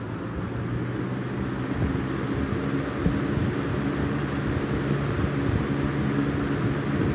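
Early-1990s Lasko Galaxy box fan running on its medium setting: a steady motor hum with the rush of moving air, gradually getting louder as the blades pick up speed.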